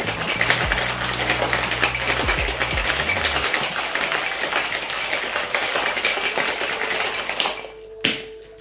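Ice cubes rattling hard inside a metal tin-on-tin cocktail shaker during a hard shake. The rattling stops about seven and a half seconds in, and a single sharp knock follows.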